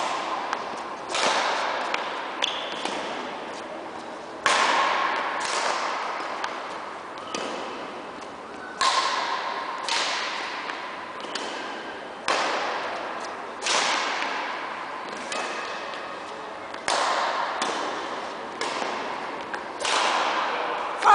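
Badminton rackets striking a shuttlecock back and forth in a rally, a sharp crack every second or so, each one ringing on in the echo of a large sports hall.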